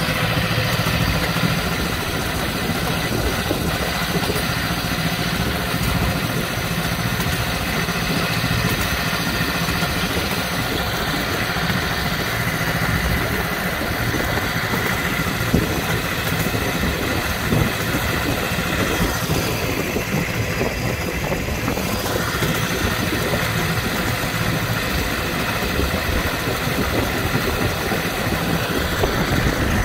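A miniature railway locomotive's engine runs steadily as it hauls the train along the track.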